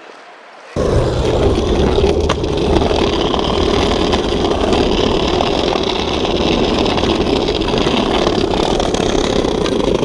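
Skateboard wheels rolling over stone paving, a loud steady rumble heard close up. It starts suddenly about a second in, with an occasional sharp click.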